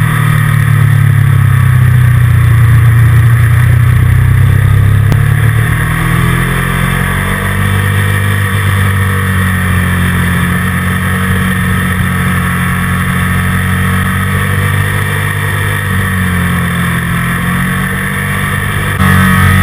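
Motorcycle engine running at speed, heard on board the bike, its pitch drifting slowly up and down through the corners.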